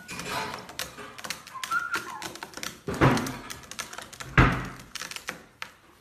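Two white-bellied caiques wrestling on a hard tabletop: quick, irregular taps and clicks of claws and beaks on the surface, with two heavier thumps about three seconds in and about four and a half seconds in, the second the louder.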